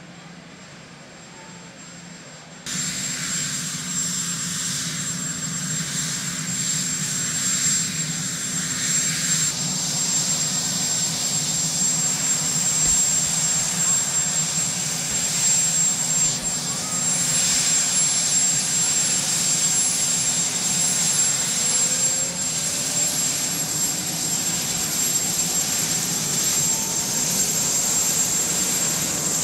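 Marine One, a Sikorsky VH-3D Sea King helicopter, running its turbine engines: a steady high whine over a noisy drone that gets suddenly louder about three seconds in. From about halfway a second, higher whine climbs slowly, and near the end lower tones rise as the engines wind up for takeoff.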